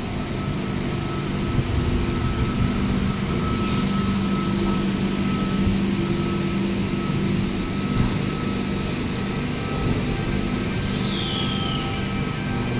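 A V set double-deck electric multiple unit rolls slowly along the platform: a steady rumble with the even hum of its electrical equipment. About eleven seconds in, a brief high squeal falls in pitch.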